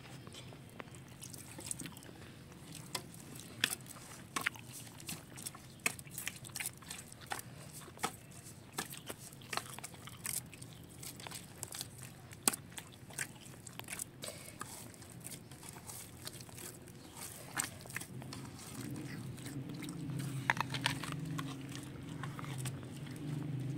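Dough being kneaded by hand in a large aluminium pot, soft squishing and pressing with scattered small clicks, alongside a child biting and chewing an apple.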